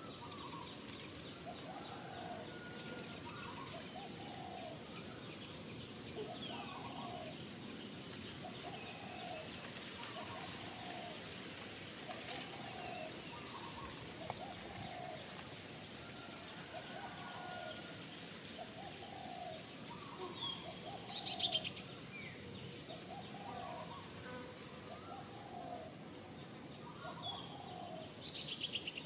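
Outdoor bird ambience: a bird repeats a short call steadily, with fainter chirping over it. Two brief louder bursts of rapid high chirps come about two-thirds of the way in and near the end.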